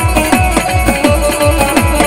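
Instrumental Gujarati folk music: harmoniums sustain a steady melody over a dak drum beating about four strokes a second, each stroke sliding down in pitch.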